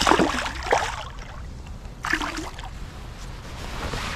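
Water splashing as a smallmouth bass is released into the river, with a burst of splashing at the start and another about two seconds in.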